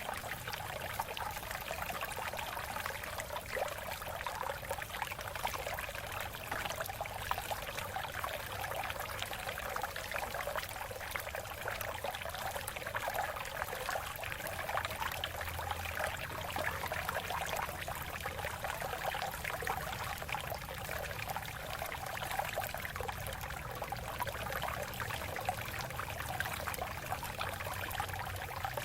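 Water flowing and splashing over rocks in a shallow stream, a steady trickling and babbling.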